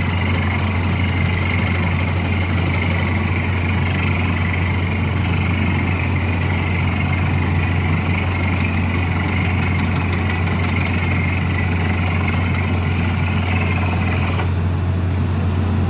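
Drilling rig's engine running steadily with a deep, even hum. A higher-pitched noise above it stops suddenly near the end.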